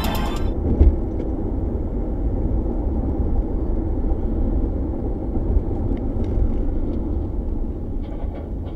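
Steady low road and engine rumble inside a car driving at highway speed, picked up by its dashcam, with one thump a little under a second in.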